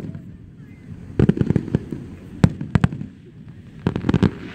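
Aerial fireworks shells bursting: sharp bangs with a low rolling echo. There is a quick cluster of reports about a second in, a few single reports around the middle, and another cluster near the end.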